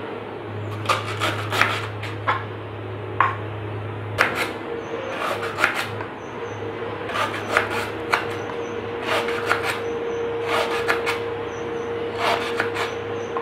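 Kitchen knife slicing a peeled banana stem into rounds on a wooden cutting board: short sawing strokes through the fibrous stem, each ending in a sharp tap on the board, about one cut a second. A steady low hum runs underneath.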